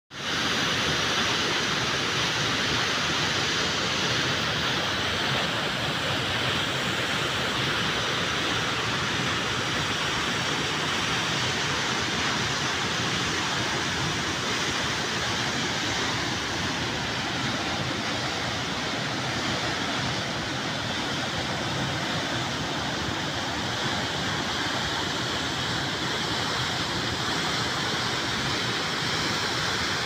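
Steady white noise played as a sleep sound: an even, unbroken hiss that comes in sharply at the very start and then holds level.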